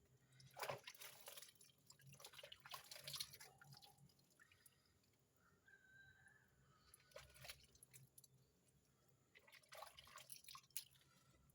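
Faint, irregular wet wiping and scrubbing strokes, with a few drips, as brake-fluid residue and rust are cleaned off a car's front brake and wheel parts.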